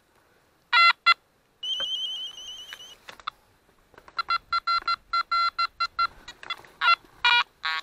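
Nokta Makro Kruzer metal detector beeping as a light aluminium find is passed over its coil: two short loud beeps, then a higher warbling tone for about a second and a half, then a run of short beeps about three a second. The detector reads the piece at 70, which the owner says is not where aluminium normally reads.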